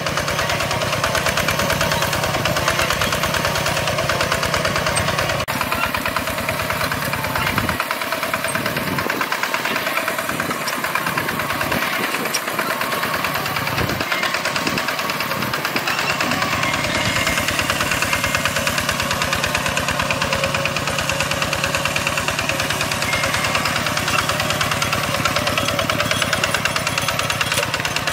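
Old farm tractor's engine running steadily under plowing load, a fast even chug at a constant level.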